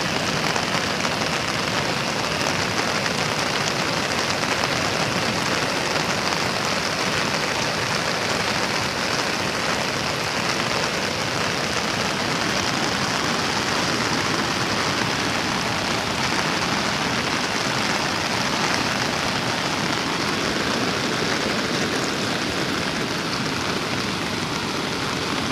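Heavy rain pouring down steadily, a dense even hiss of downpour on surfaces.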